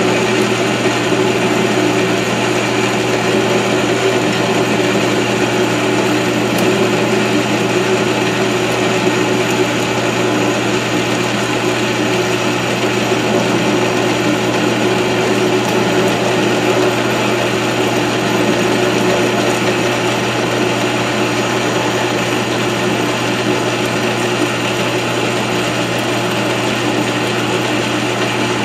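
South Bend 13-inch metal lathe running steadily under power, with an even mechanical hum while a shallow oil relief is turned into the handwheel shaft.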